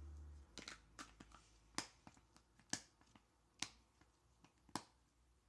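Sharp clicks and pops of stretchy glitter slime squeezed and pressed between the hands: a few soft ones in the first second, then four louder pops about a second apart.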